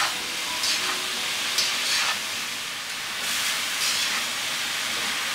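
Grated cabbage, carrot, capsicum and onion sizzling as they are sautéed in a hot iron kadai. A spatula stirs them, scraping against the pan now and then.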